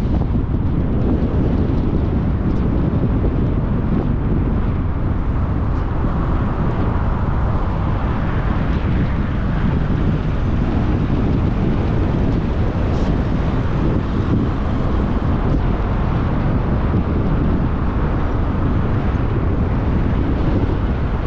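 Steady wind buffeting the microphone of a suction-mounted action camera on a moving car, over the rumble of road and tyre noise.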